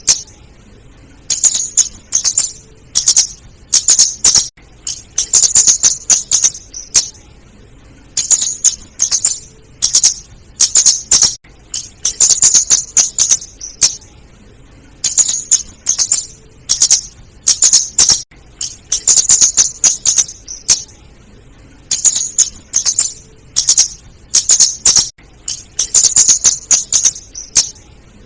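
Female flowerpecker (kemade / cabe-cabean) calling actively: rapid, high, sharp ticking chips in bursts of about a second, repeating every two seconds or so.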